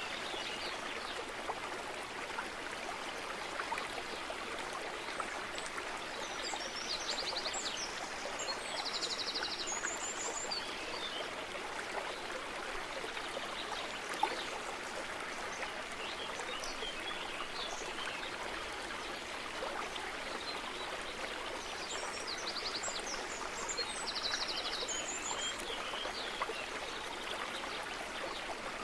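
Steady flowing water, like a stream, with brief high bird chirps in two spells.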